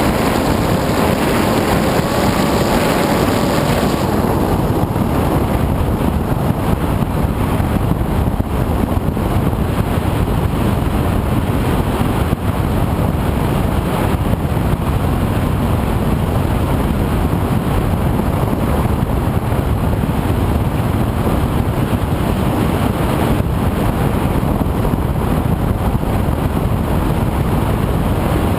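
Steady, loud rush of wind over the onboard camera microphone of an FPV aircraft in flight, mixed with its motor noise; a faint hum rises slightly in pitch during the first few seconds.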